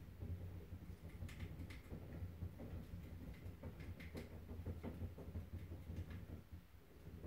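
Saucer-style running wheel spun by a mouse running on it: a faint low rumble with irregular light ticks and clicks.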